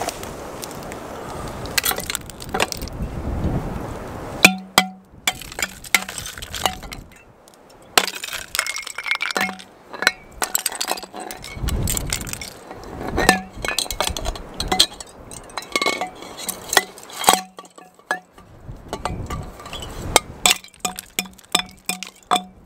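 Water trickling and dripping from an icicle-hung plastic spring pipe into a 1.5-litre bottle as it fills, with many sharp clinking drips. Wind noise on the microphone in the first few seconds.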